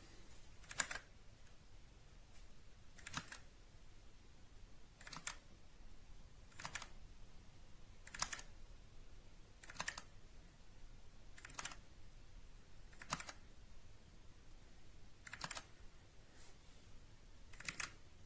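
Single key presses on a TMKB T63 mechanical keyboard: about a dozen faint, separate clicks spaced a second and a half to two seconds apart.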